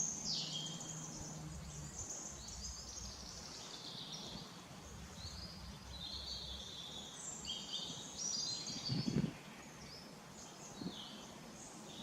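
Several small birds singing and chirping, with many short high phrases overlapping, over a low steady background rumble. A brief low thump comes about nine seconds in.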